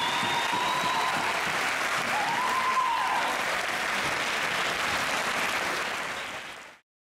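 Audience applauding, fading out to silence near the end.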